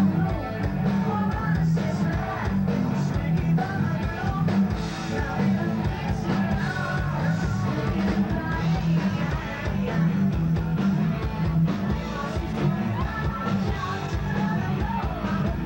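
Live rock band playing at full volume: electric guitar and drums, dense and continuous.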